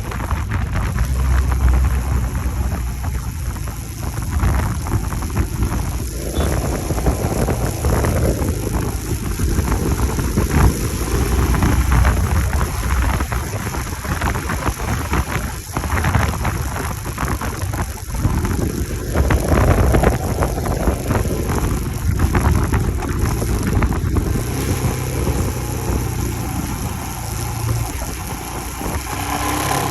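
Royal Enfield Himalayan's single-cylinder engine running while the motorcycle is ridden, with heavy wind rushing over the microphone. The engine note rises and falls in pitch a few times.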